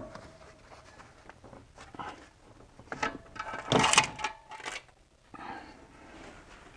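Knocks, scrapes and metallic clinks as a BMW M54 inline-six's aluminium cylinder head is lifted off the engine block, with a cluster of louder knocks and a brief ring about four seconds in.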